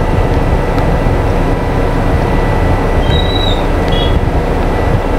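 Motorcycle engine running as it rides slowly, mixed with a dense, steady rumble of wind and road noise on the microphone.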